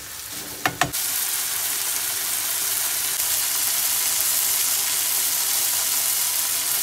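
Potato gnocchi and broccolini frying in butter in a nonstick pan: a steady sizzle. In the first second a plastic spatula knocks against the pan a couple of times as the food is stirred.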